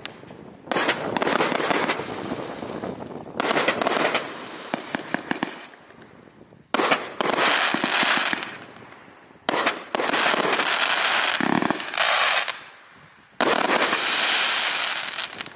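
A 164-shot compound firework cake firing in volleys: about six sudden bursts of rapid shots a couple of seconds apart, each trailing off in a crackling hiss as the stars break.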